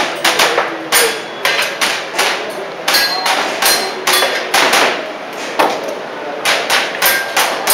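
Airsoft pistol firing an irregular string of sharp shots, about twenty of them, many as quick pairs, with short pauses between groups.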